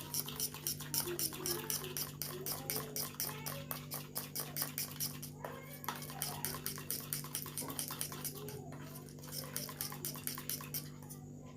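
A spoon mashing and stirring a thick paste of honey and burnt banana-peel ash against its dish: rapid, even scraping clicks, about five a second, that thin out near the end as the paste turns smooth.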